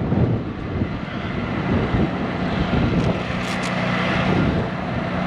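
A vehicle engine running steadily with a low hum, under a constant rushing noise.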